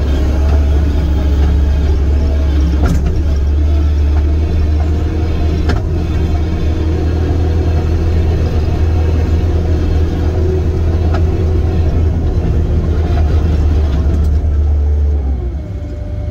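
Link-Belt 145 excavator's diesel engine running steadily under throttle, with a few sharp clicks; near the end the engine note drops and the sound gets quieter.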